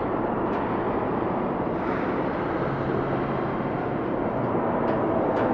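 Abandoned factory ambience: a steady, dense drone of room tone in a large empty industrial space. A faint low hum comes in for about a second midway, and a few brief, faint, high metal squeaks come about half a second in and twice near the end.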